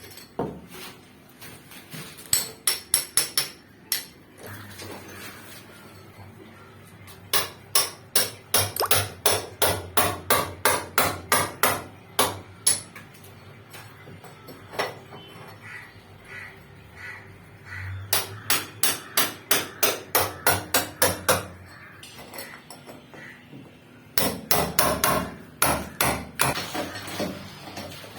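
Hammer blows in four runs of fast, even strikes, about three or four a second, with short pauses between the runs.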